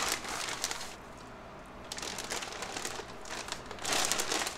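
Plastic zip-top freezer bag crinkling as gloved hands work skirt steak into it, in several bursts with a short lull about a second in and a louder burst near the end.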